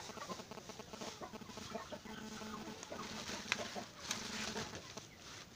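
A flock of chickens clucking, many short clucks overlapping, with a sharp click about three and a half seconds in.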